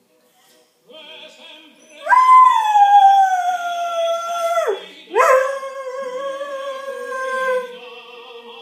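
Dalmatian howling along to opera from a television: two long howls, the first starting about two seconds in and sliding slowly down in pitch, the second lower and held steadier before fading. Faint opera music sounds underneath.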